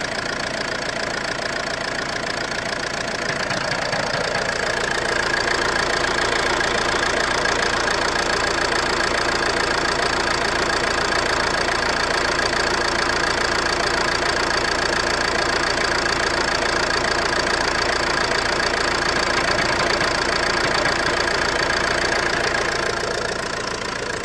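Ford C-Max engine running with a knocking noise, which the owner suspects comes from the flywheel. It gets louder about four seconds in, holds steady, and eases off near the end.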